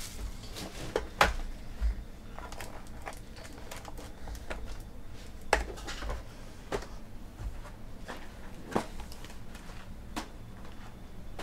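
Trading cards, card holders and a foil pack being handled and set down on a table: scattered light taps and clicks, a few of them sharper.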